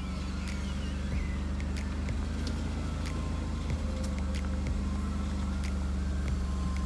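Vehicle engine running steadily with a low drone and a few light clicks.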